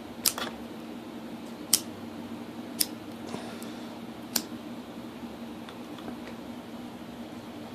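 A few sharp clicks or taps, four of them distinct in the first half, over a steady low hum.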